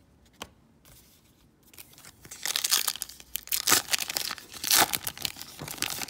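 A 2018 Topps Road to WrestleMania trading-card pack wrapper being torn open and crinkled by hand, a dense crackling that starts about two seconds in, after a single click.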